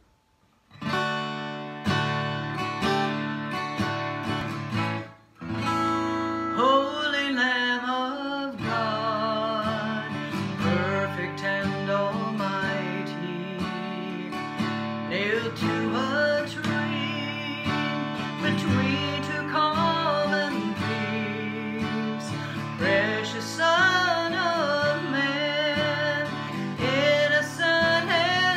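Acoustic guitar strummed and played in chords by a woman who sings along with it. The guitar starts about a second in, drops out briefly near five seconds, and her voice comes in about six and a half seconds in.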